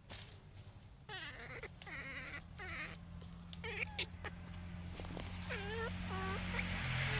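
Baby macaque calling repeatedly, a string of short high cries, the last few dipping and then rising in pitch. A few sharp snaps of twigs come near the middle.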